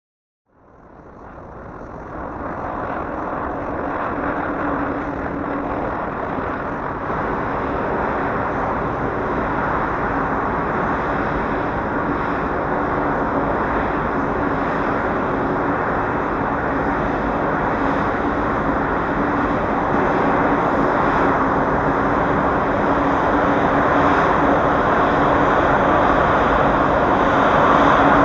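Jet engines of a twin-engine Boeing 777-200 running, a steady rushing noise with a faint hum underneath that fades in over the first few seconds and grows slowly louder toward the end.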